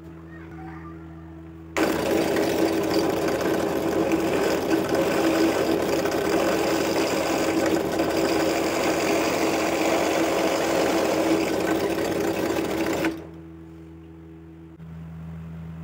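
Benchtop drill press with a twist bit boring through a wooden block: a loud, steady cutting noise starts sharply about two seconds in, runs for about eleven seconds and stops as the bit is withdrawn. A steady lower hum is heard before and after the cut.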